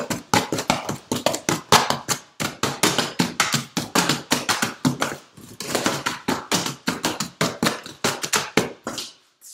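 A small knife stabbing and slashing into a cardboard box in a rapid flurry, several dull strikes a second. The flurry pauses briefly about five seconds in and stops just before the end.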